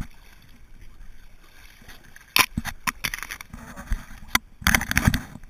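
Twigs and leaves of overhanging riverside bush brushing and scraping across a camera on an inner tube: a run of close crackles and knocks starting about two seconds in, thickest near the end, over faint water.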